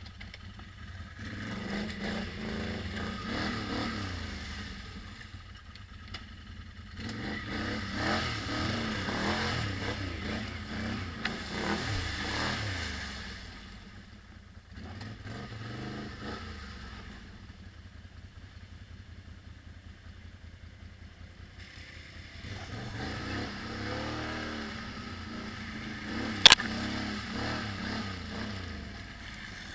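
ATV engine ridden along a muddy trail, revving up and easing off in three surges with quieter running between. A single sharp knock near the end.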